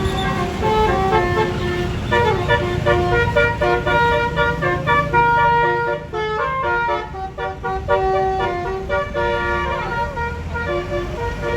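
A tour bus's multi-note basuri 'telolet' air horn playing a melody of short notes that step up and down in pitch, with the bus engine rumbling underneath.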